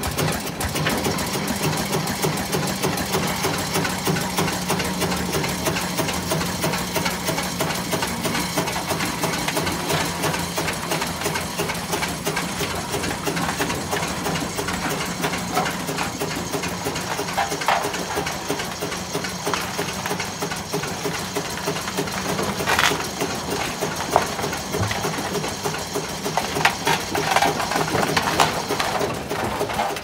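1938 Aveling Barford DX8 road roller's diesel engine running with a steady, rapid clatter as the roller drives slowly along. A few short clanks come in the second half.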